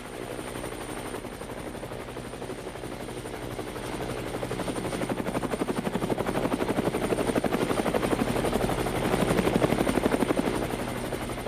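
Helicopter rotor, a rapid steady chop that grows louder through the middle and eases off near the end.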